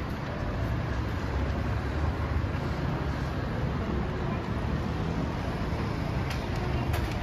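Steady city street ambience: a low rumble of road traffic, with a few brief clicks near the end.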